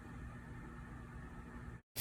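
Faint steady background hiss with a low hum, cutting off abruptly to dead silence just before the end.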